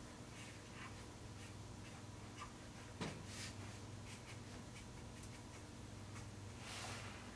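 Faint scratching of a marker writing a label on a removed metal window track, with a light knock about three seconds in.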